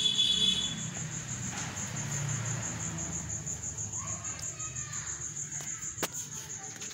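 Insect chirping steadily: a high-pitched pulsing trill of about five pulses a second, with a low hum underneath. A brief, louder high-pitched call comes right at the start.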